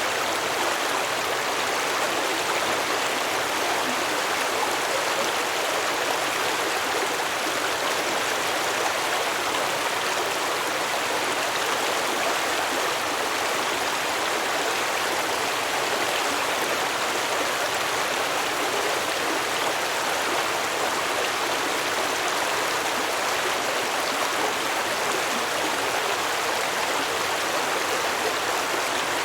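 A stream flowing and babbling over rocks, steady and continuous.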